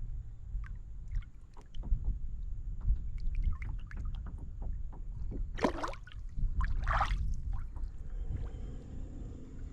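Water slapping and splashing around a plastic fishing kayak, with small knocks on the hull. Two louder splashes come a little past halfway.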